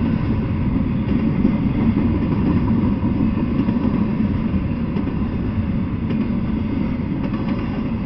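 Intermodal freight train rolling past, its container and trailer cars making a steady low rumble of wheels on the rails.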